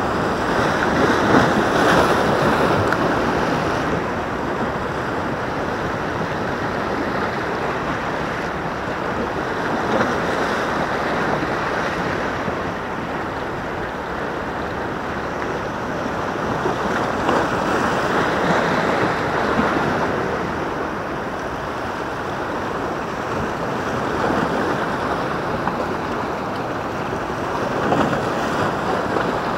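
Sea waves breaking and washing against a rocky breakwater, the surf swelling and easing every several seconds.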